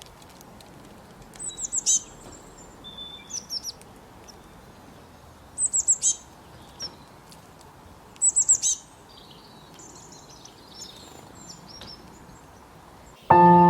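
Forest songbirds chirping in bursts of four or five quick, high, falling notes, three loud bursts in all, with softer twittering between them over a faint steady hiss. Just before the end, a sustained musical chord comes in.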